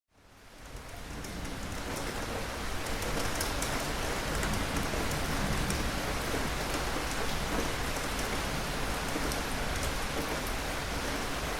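Steady rain falling, fading in over the first couple of seconds, with scattered sharp drop ticks over an even hiss.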